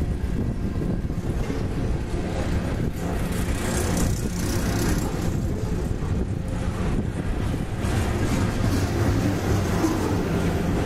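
Freight train cars rolling past at close range: a steady rumble of steel wheels on the rails, with faint clicks now and then.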